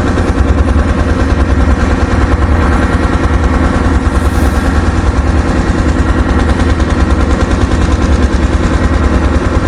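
An engine running steadily close by, with a low, rapid, regular pulsing beat and no change in speed.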